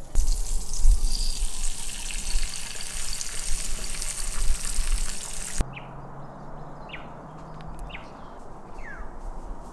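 Eggs frying on an electric grill plate, a loud steady sizzle that cuts off sharply a little over halfway through. After that, four short falling bird chirps, about a second apart, over quiet outdoor ambience.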